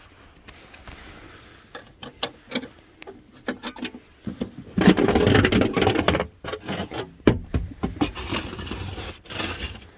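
Press studs being pulled out and a van floor mat being rolled back: scattered clicks and knocks, then two longer spells of scraping and rustling, about five seconds in and again near the end.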